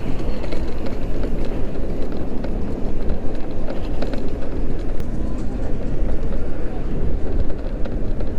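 Many people talking at once, with no single voice standing out, over a steady low rumble.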